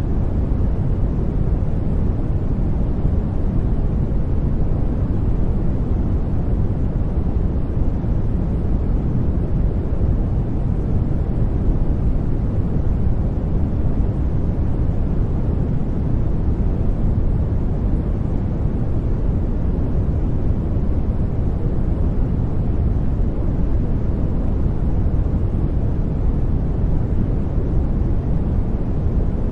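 Steady synthetic background noise, sold as white noise but weighted to the low end: a deep, even rushing hiss that never changes.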